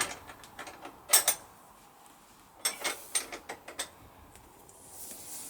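Spanner clicking and clinking on metal while tightening a bolt on a motorcycle's rear chain adjuster: a couple of sharp clicks about a second in, then a quick run of clicks a couple of seconds later.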